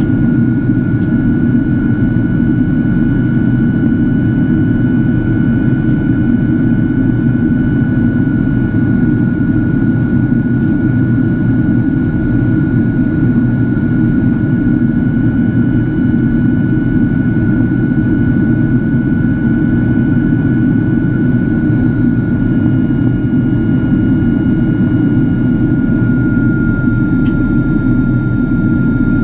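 Cabin noise inside a Boeing 767-400ER in flight: a steady loud rumble of engines and airflow with a thin, steady high whine above it.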